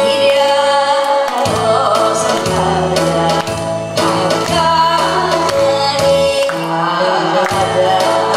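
A woman singing into a microphone over amplified instrumental accompaniment with a repeating bass line.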